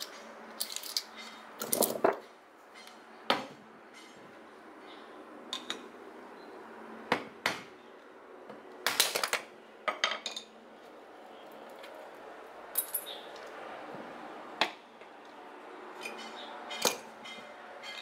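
Steel-cored microwave-oven transformers clinking and knocking as they are picked up, set down on concrete and stacked on one another. There are a dozen or so sharp metal impacts at irregular intervals, some in quick little clusters.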